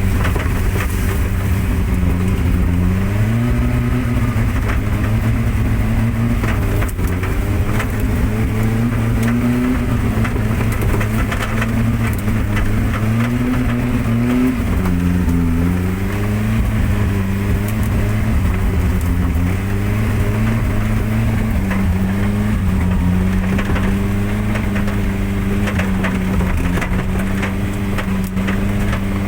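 Daihatsu Gran Max engine pulling under load off-road, its revs rising and falling repeatedly, with frequent knocks and rattles as the vehicle jolts over rough ground.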